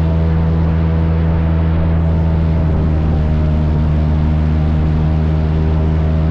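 Airboat engine and its large air propeller running steadily, a loud, even drone.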